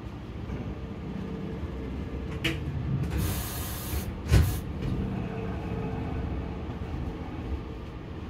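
Low rumble of a Hankyu electric train moving slowly along the adjacent track, with a click about two and a half seconds in, a burst of air hiss about a second later, and a heavy thump just after the hiss.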